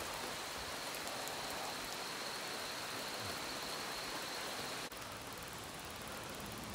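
Steady hiss of rain and wet-road noise while riding a bicycle in the rain. About five seconds in the sound changes abruptly and stays a little quieter.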